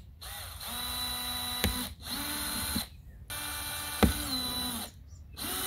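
Cordless drill with an 11/64-inch bit whining in four short bursts, each spinning up and winding down, as it widens small punched holes through a vinyl pool liner and rubber gasket for screws. A sharp click is heard about 1.6 s and about 4 s in.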